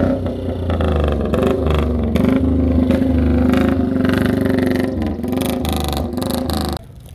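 Vintage British racing-style motorcycle engine running with a fast, even firing pulse as the bike is ridden slowly past, the revs rising and falling a little. The engine sound cuts off suddenly near the end.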